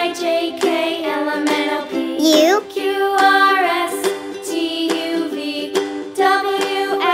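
Cheerful children's background music with plucked strings and a melody line. A rising sliding note comes about two seconds in.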